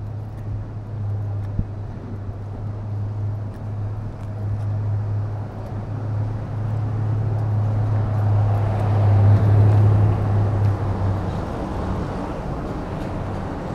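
Town-street traffic: a steady low hum, with a vehicle passing that swells and fades about two-thirds of the way in.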